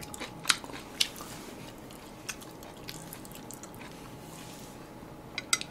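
A person chewing food close to the microphone, with a handful of sharp clicks scattered through, a quick cluster of them near the end.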